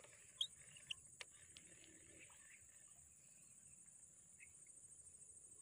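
Faint outdoor ambience: a steady high-pitched insect buzz, with a few soft clicks in the first second or so and brief faint bird chirps.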